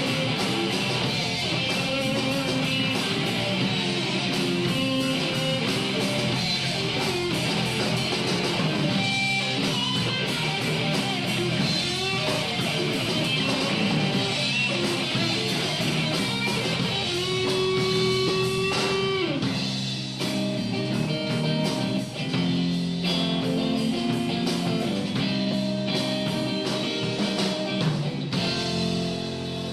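Instrumental song passage led by electric guitar, with picked notes and a long held, bending guitar note about two-thirds of the way in.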